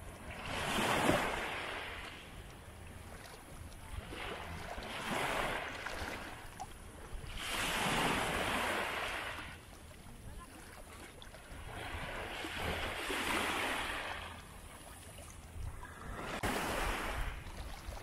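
Sea waves breaking and washing in. There are about five swells of surf, each rising and fading over a second or two, every three to four seconds, over a steady low rumble.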